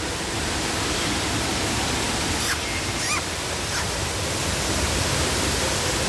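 Steady, even rushing hiss throughout, with a few short high chirps from birds in the aviary about two and a half to four seconds in.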